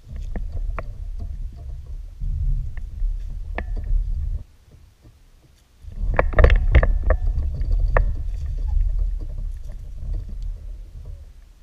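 A fish striking a topwater lure with a splash, then splashing and thrashing as it is fought to the kayak and leaps clear of the water, over a low rumble with scattered sharp clicks; the busiest, loudest part comes about six seconds in.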